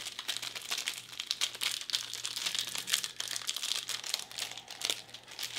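Clear plastic wrappers of ration crisp bread and biscuits crinkling as hands handle and tear them open, a dense run of sharp crackles.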